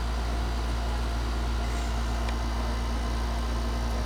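Steady low mechanical hum of a running machine, even and unchanging, with a faint tick or two.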